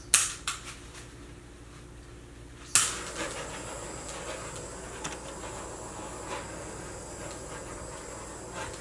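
A couple of sharp clicks, then a handheld torch flame comes on about three seconds in and hisses steadily, used to pop air bubbles in freshly poured acrylic paint.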